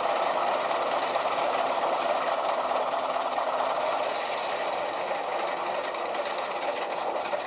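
Simulated diesel prime mover sound of a Rapido 44-tonner model locomotive playing loudly through its onboard speaker, running steadily, easing slightly in the second half and stopping at the very end.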